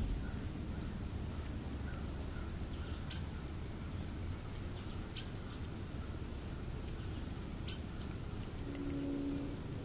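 Animal calls over a steady low rumble: three short, high chirps a couple of seconds apart, then a brief low-pitched call near the end.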